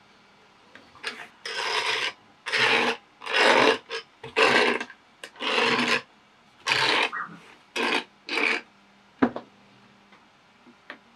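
Flexible metal gooseneck arms of a lamp-based fume extractor rasping as they are bent and repositioned: about eight short scraping crinkles in a row, then quiet.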